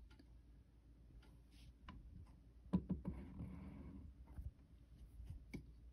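Faint scattered taps and clicks with light rustling, the loudest few about three seconds in, from a hand moving right up against the microphone.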